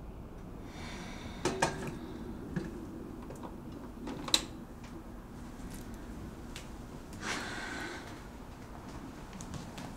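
Kitchen handling sounds: a few sharp clicks and knocks of cupboards and objects being moved, the loudest a little after four seconds. There are two short noisy rushes, one early and one about seven seconds in.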